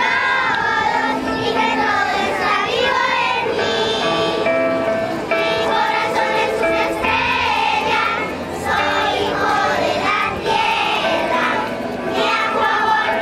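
A group of children singing together to a song, accompanied by drums and hand percussion.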